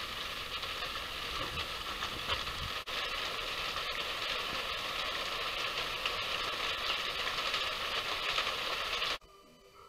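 A steady hiss of noise with no distinct events, cutting off suddenly near the end.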